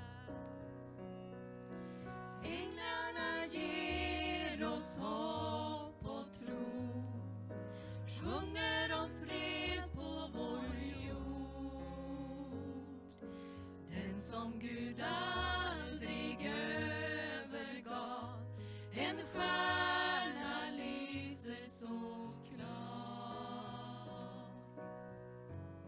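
A small group of women singing a Christmas song together in harmony into microphones, with keyboard accompaniment holding sustained low notes.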